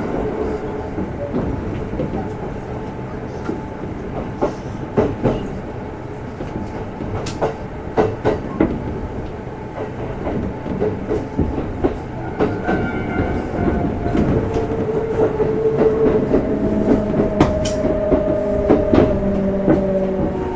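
Kintetsu 1259 series electric train heard from inside its motor car: wheels clicking over rail joints over a steady running rumble, with the traction motor whine coming in partway through and slowly falling in pitch near the end.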